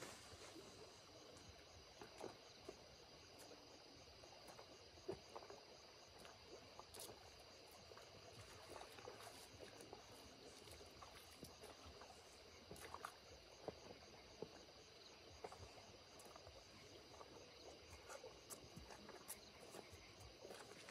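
Near silence: faint scattered rustles and small water sounds, with a steady high insect chirring behind.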